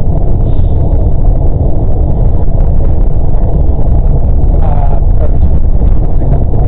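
Loud, steady low rumble of a car's road and engine noise heard from inside the cabin while driving, with a brief faint voice about five seconds in.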